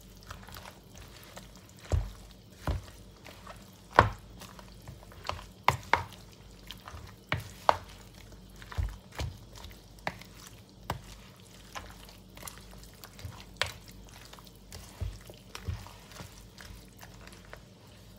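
Wooden spoon stirring a thick fish-paste, coconut-milk and mushroom mixture in a plastic bowl, with irregular knocks of the spoon against the bowl, the loudest about four seconds in.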